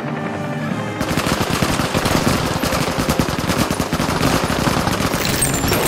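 Film soundtrack: held notes of score music, then about a second in, several automatic rifles open fire together in rapid, continuous bursts that carry on to the end.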